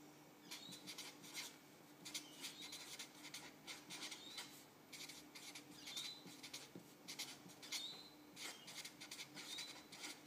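A marker pen scratching and rubbing across paper as words are written, in short quick strokes with several brief high squeaks. A faint steady hum sits underneath.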